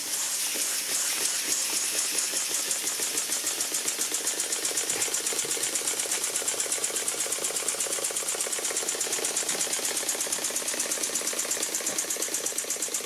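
IND-X toy steam engine, 3/4-inch bore by 1 1/4-inch stroke, running on steam from its electric-heated boiler: a quick, even chuffing of exhaust steam over a steady hiss, the beat settling in after the first couple of seconds.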